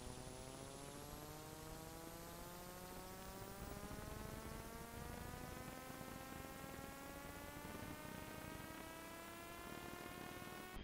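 A faint buzzing hum with many overtones, rising slowly and steadily in pitch, over a steady hiss.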